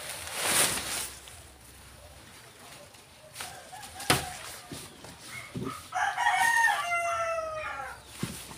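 A rooster crows once, a loud call of about a second and a half that falls in pitch at the end, about six seconds in. Earlier there is a brief rustling rush of the pop-up tent's nylon fabric and a single sharp snap as the tent is opened.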